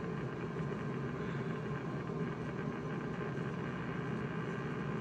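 Steady static from HF ham radio receivers, an Icom IC-7300 on the 80 m band and a Flex-6600M on 40 and 20 m, all filled with the same noise, which the owner suspects is power-line noise.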